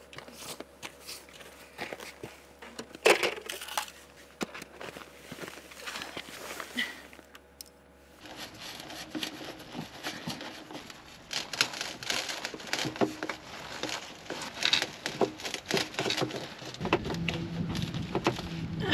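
Scattered clicks, then from about eight seconds in a dense run of small clicks and crinkling: a screwdriver working a hose clip and a corrugated plastic waste hose being handled under a van, to free a frozen waste-water pipe.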